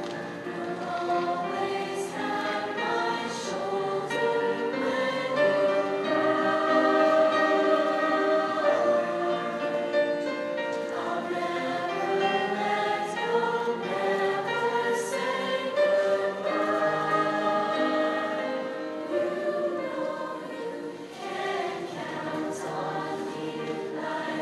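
Middle school show choir singing together in harmony.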